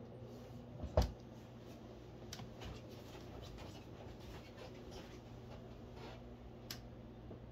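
Quiet room tone with a steady low hum and faint, scattered scratchy ticks. A sharp knock comes about a second in and a smaller click near the end.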